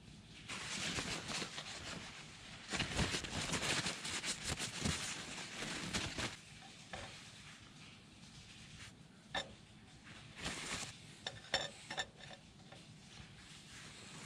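Crackling and sizzling from a stovetop smoke pot of pork luncheon meat over cherry-wood chips for several seconds, then a few light metallic clinks near the end.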